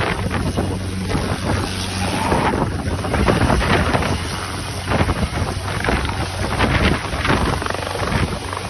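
A steady low engine hum under heavy wind buffeting the microphone, the gusts coming and going irregularly.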